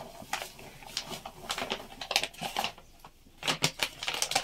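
Crinkling and rustling of a wheat-flour packet as it is shaken out into a metal basin: a string of short, irregular crackles.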